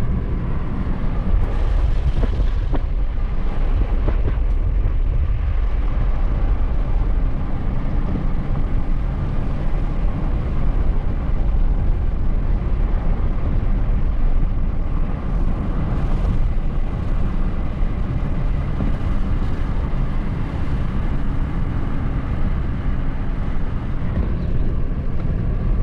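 A car driving at low speed, its road and engine noise a steady low rumble throughout.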